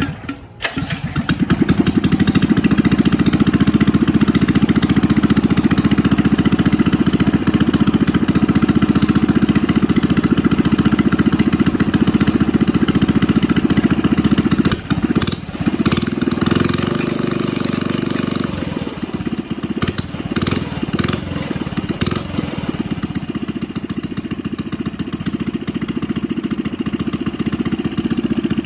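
Coleman CT100U mini bike's small single-cylinder four-stroke engine running through a new aftermarket AR Sport exhaust, picking up about a second in and then running steadily and loud. About halfway through it dips briefly and then runs on with a changed pitch.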